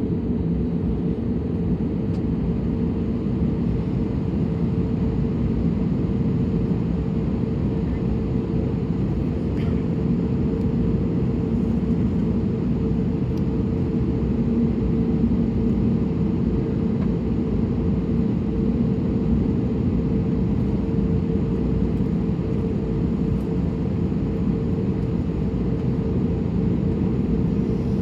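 Steady drone of an Airbus A320neo heard inside the cabin, its engines running at low, idle thrust before take-off. A low, even rumble carries a constant hum, with a few faint clicks around the middle.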